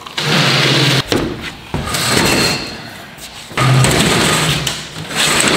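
Heavy air-compressor unit's metal frame being shoved across the truck bed, scraping and grating in three or four pushes of about a second each, with knocks between them.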